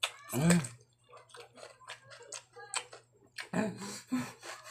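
Crisp, wet crunching and chewing of a bitten-off piece of raw cucumber: a run of sharp little crunches. A brief vocal sound comes shortly after the start and another near the end.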